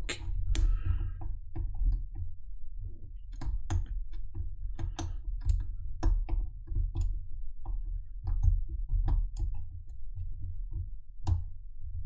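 Hook pick ticking and scraping inside the keyway of a Maxus padlock held under a tension wrench: irregular small metallic clicks as it probes for pins that can hardly be felt. A low steady hum runs underneath.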